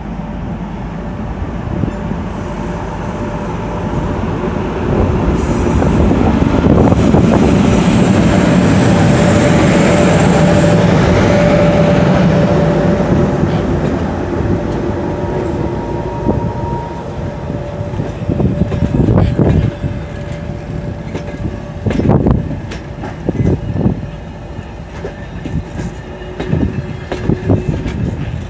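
Electric locomotive pulling a passenger train out slowly and passing close by, its running noise swelling to a peak about ten seconds in with a hiss on top. Then the passenger coaches roll past, their wheels knocking over rail joints every few seconds, with a thin steady whine.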